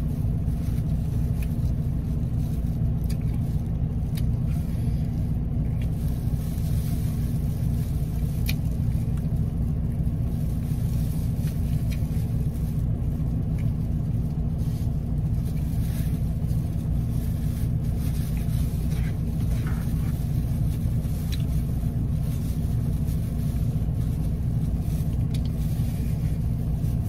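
Steady low rumble of a car's idling engine heard inside the cabin, with a few faint clicks from eating and handling food with plastic gloves.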